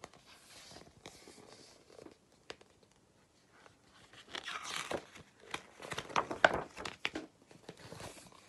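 Paper pages of a picture book rustling and crinkling as they are turned and handled, with a few sharp snaps. Faint at first, loudest about halfway through.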